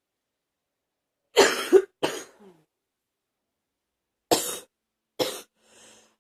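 A person coughing hard: three harsh coughs in quick succession about a second in, then two more single coughs near the end.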